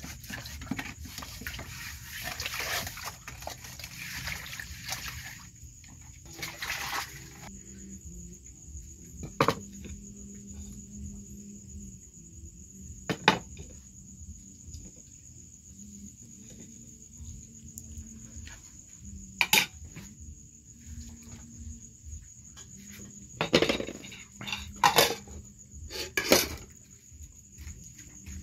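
Water swishing in a metal basin as a hand stirs and rubs in it, then scattered sharp clinks of a spoon against ceramic plates and bowls.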